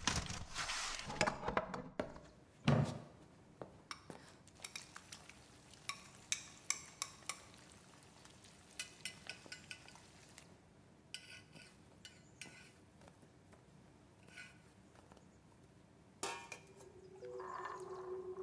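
Kitchen utensil sounds: a thud about three seconds in, then a run of light clinks and taps of a utensil against a pan and dishes. Near the end, a steadier pouring sound begins.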